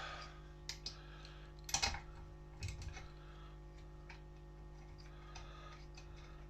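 A few light metallic clicks and taps from small tools and parts being handled on a workbench, the loudest about two seconds in, then only faint scattered ticks over a steady low hum.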